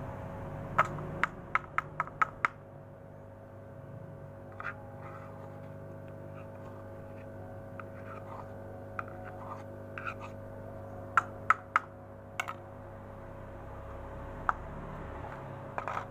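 A metal spoon and small plastic cups and a plastic bowl click and knock together as feed pellets are handled. There is a quick run of about six sharp clicks about a second in, then scattered single clicks later, over a steady low hum.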